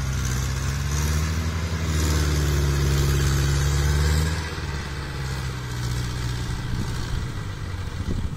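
Kubota DC-70 crawler combine harvester's diesel engine running steadily under load while harvesting rice. Its drone drops in level about four seconds in.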